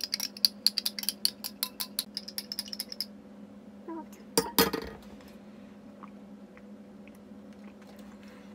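A drink being stirred in a glass, the stirrer clinking rapidly against the glass for about three seconds. About four and a half seconds in comes a short, louder clatter as something is set down.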